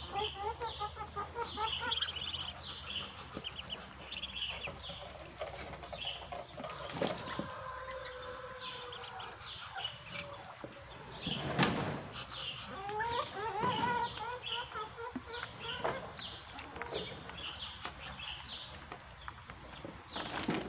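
A brood of Muscovy ducklings peeping over and over in short, high calls while feeding, with some lower, wavering calls mixed in. There is a brief louder noise just past the middle.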